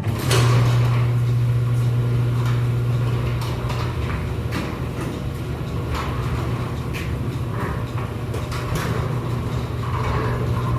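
Snow being cleared from a car: irregular knocks and scrapes over a steady low hum that dips briefly partway through.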